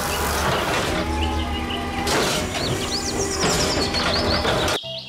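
Automated side-loader garbage truck running at the curb, its hydraulic arm lifting and tipping a trash cart, with a low engine rumble and a steady whine. High chirps sound over it, and it cuts off suddenly near the end, giving way to music.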